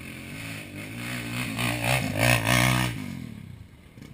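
Enduro dirt bike passing close by under throttle: the engine grows louder to a peak about two to three seconds in, then drops away quickly as the bike moves off.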